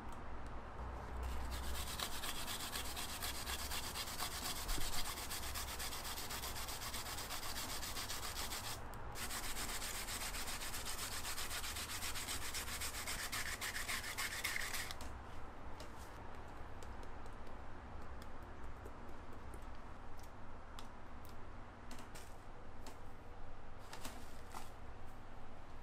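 Spoon and containers scraping as chili paste and minced garlic are scraped into a stainless steel mixing bowl: a long, continuous scraping that breaks off briefly about nine seconds in and stops about fifteen seconds in. Light clicks and taps follow as more seasonings go in.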